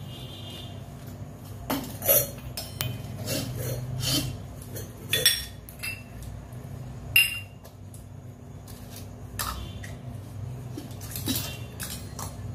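Brass and bell-metal utensils clinking and knocking against one another as they are handled and set down: irregular sharp clinks, a few with a short ring, over a low steady hum.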